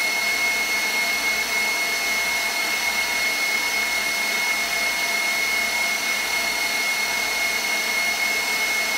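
KitchenAid stand mixer's motor running steadily at a high speed, driving the pasta press attachment as it extrudes bucatini: an even whine with a steady high tone in it.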